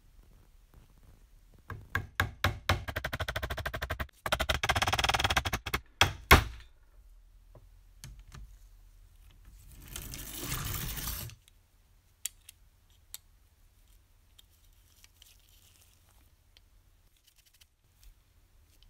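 Toy locomotive's drive mechanism running: a few sharp clicks, then a fast whirring run of ticks lasting a few seconds with a short break, and later a shorter rasping run. Scattered small clicks follow.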